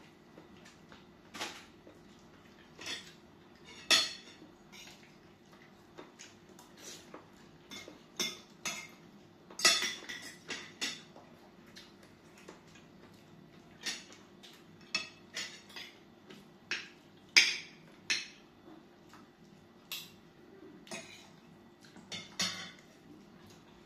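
Spoons and forks clinking and scraping against glass and ceramic plates and bowls during a meal, in irregular short knocks, a few of them sharper and louder, over a faint steady hum.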